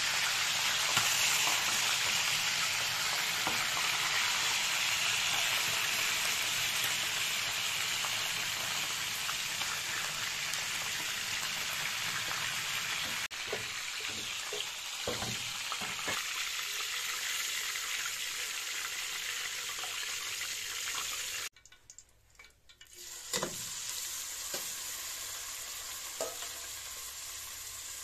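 Hot oil sizzling loudly as a whole chicken fries in a pan. About halfway through the sizzle drops and a few metal knocks follow as a steel pot goes onto the stove. After a brief cut-out, sliced peppers sizzle more quietly in oil in the pot, with an occasional click.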